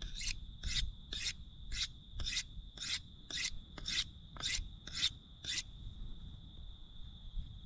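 Knife blade being sharpened with quick, even rasping strokes, about three a second, which stop a little past halfway.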